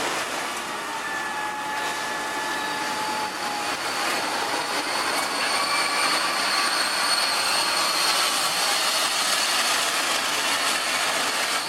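Horizontal wood chipper running: a steady, loud mechanical rush with thin high whining tones that come and go over it.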